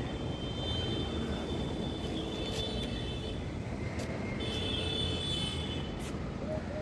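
Steady hum of road traffic, cars and motorbikes passing outside, with a few faint clicks over it.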